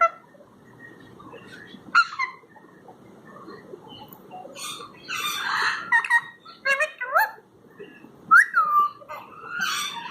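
Ringneck-type parrots (Indian ringneck and Alexandrine) calling: a few short chirps, then from about halfway a harsh squawk and several whistled notes that slide up and down, the loudest near the end.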